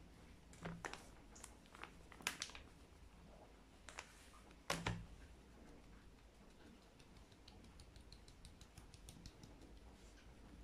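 Light taps and knocks on a plastic mesh sieve as icing sugar is sifted: a few scattered knocks in the first five seconds, then a quick run of faint ticks, several a second, in the second half.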